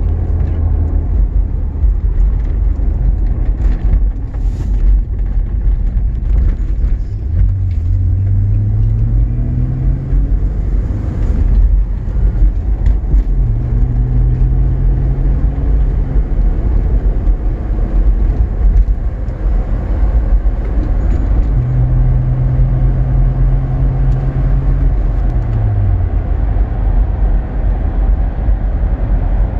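Tyre and road noise inside the cabin of a Mitsubishi Pajero 3.5 V6 running on Goodyear Wrangler AT/SA+ all-terrain tyres at road speed: a steady low rumble of the tread on asphalt. Over it the engine note rises as the car speeds up about a third of the way in, holds through the middle, and drops near the end.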